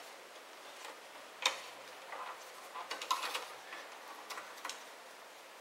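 Scattered light clicks and ticks of a hand screwdriver working small screws out of a plastic radio-cassette housing, the sharpest about a second and a half in and a cluster of them near the middle.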